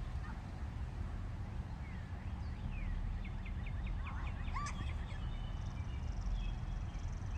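Birds chirping over a steady low rumble. There are scattered chirps, and a quick run of short downward chirps comes around the middle.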